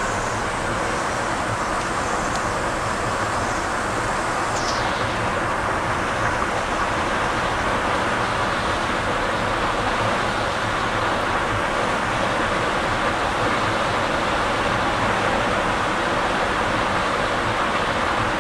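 Steady engine and road noise inside the cab of a 1979 Ford F-250 Ranger pickup cruising down the road.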